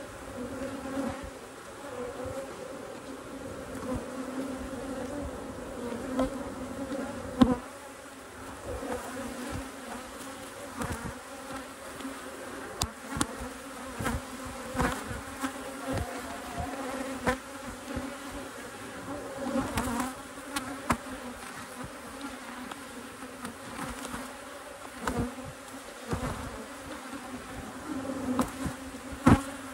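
Honeybees buzzing in a steady hum from an opened hive. Short clicks and knocks break in now and then.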